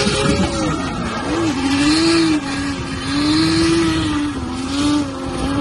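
Car engine held at high revs while its rear tyres spin and screech through a smoky drift, the engine note wavering up and down with the throttle and dipping briefly about one and a half seconds in.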